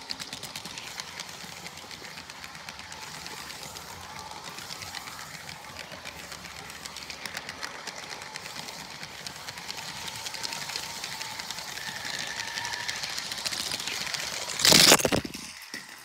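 Motorised Lego train heard from a camera riding aboard it, rattling along plastic Lego track as a fast stream of clicks with a faint whine, slowly getting louder. Near the end, one loud crash as the train crashes.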